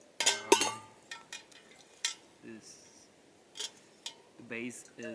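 Metal camping cookware and stove parts being handled and knocked together. A loud, ringing clank comes just after the start, followed by scattered lighter clinks and taps.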